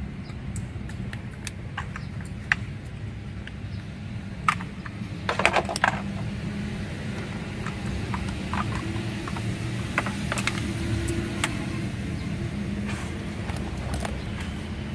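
Mitsubishi Triton's 2.5 L diesel engine idling as a steady low hum. Scattered light clicks sound over it, with a short clatter of handling about five and a half seconds in.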